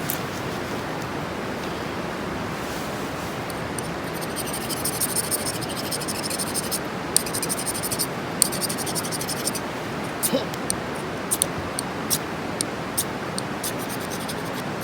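Dense high crackling in bursts, thinning to scattered sharp snaps, over a steady hiss. Typical of a bonfire catching.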